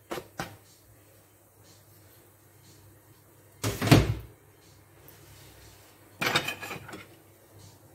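Kitchen handling sounds: a couple of light knocks as onion slices are scraped off a plastic cutting board into a clay tajine, then a heavy thump about four seconds in and a brief clatter about two seconds later.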